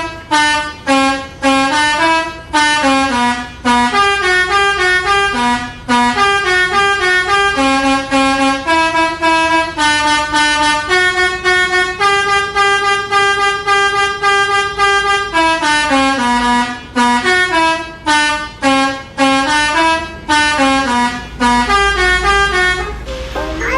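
A bus's multi-tone "telolet" basuri air horn playing a melody. It steps quickly from note to note in short phrases with brief breaks between them, and holds a few longer notes in the middle.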